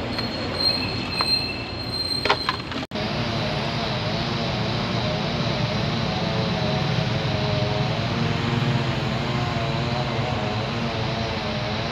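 Heavy dump truck's diesel engine running steadily at a standstill by the road: a low hum with a wavering higher drone over traffic noise. It starts abruptly about three seconds in, after a short stretch of outdoor ambience with a few clicks.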